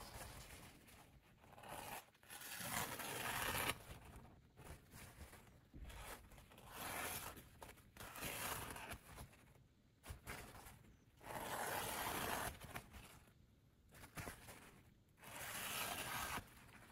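A sheet of paper towel being sliced against the freshly sharpened edge of a chef's knife as a sharpness test: about five short papery cutting strokes, each lasting around a second, with pauses between.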